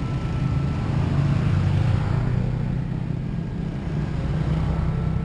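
Small motorcycle engines and road traffic running at a railroad crossing, with one motorcycle riding across the tracks. The low engine hum is steady and a little louder about one to two seconds in.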